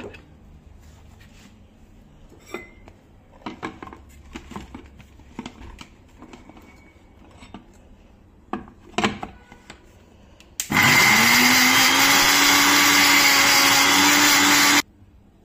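Sujata mixer grinder: a few clicks and knocks as the lid is pressed onto the steel jar and the jar is seated on the base. About ten seconds in, the motor starts and runs loud and steady for about four seconds, its pitch rising quickly as it spins up, grinding the coriander chutney. It cuts off suddenly.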